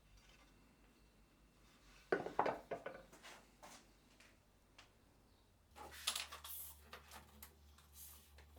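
Two short runs of clattering knocks, as of objects being handled and set down, one about two seconds in and another from about six seconds; a low steady hum sets in just before the second run.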